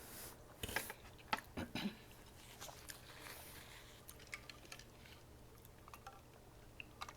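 Close-miked eating sounds: a quick run of wet mouth clicks and crunches in the first two seconds, then fainter scattered chewing clicks.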